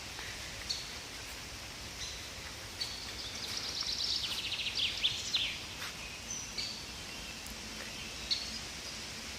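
Songbirds singing in a spring forest: short high calls every second or two, and a longer, rapid trill from about three to five and a half seconds in, over a steady hiss of background noise.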